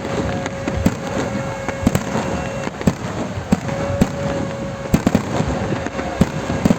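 Fireworks and firecrackers going off in irregular sharp cracks and bangs, over a continuous noisy background. A steady whistling tone holds through the first couple of seconds, stops, and comes back briefly in the middle.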